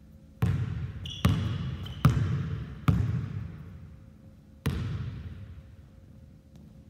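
A basketball bouncing on a hardwood gym floor, five sharp bounces, four of them roughly a second apart and the last after a longer gap. Each bounce rings on in the large hall's echo.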